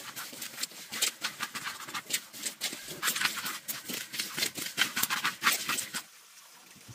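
Dry grain being stirred and swept around a large steel wok, a rapid, irregular rustling and scraping of kernels against the metal as they are dry-roasted. It stops about six seconds in.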